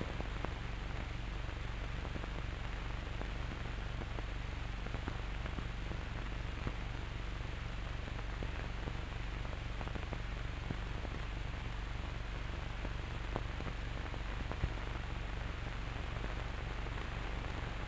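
Steady hiss of an old film soundtrack with scattered faint crackles and a low hum underneath.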